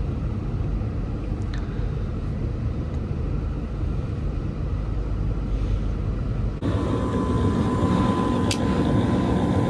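Steady low rumble of a vehicle on the move, heard from inside. About two-thirds of the way in the sound changes abruptly to a slightly brighter steady hum with a thin, high, steady whine.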